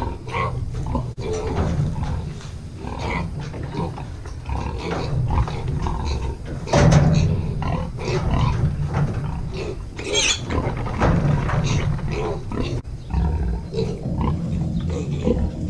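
Berkshire, Yorkshire and Duroc cross piglets squealing and grunting in many short, irregular calls as they are caught by the hind leg and loaded into a livestock trailer, with a loud call about seven seconds in and a high, shrill squeal about ten seconds in.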